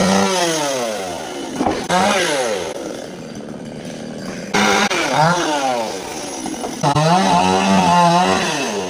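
Two-stroke chainsaw engine revved to high speed about four times, the pitch falling away after each rev, with the longest stretch at full speed near the end.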